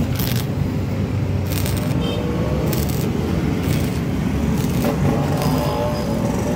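Stick-welding arc from a transformer arc welder crackling in several short bursts, roughly one a second, as the electrode is struck against steel. A steady low hum runs underneath.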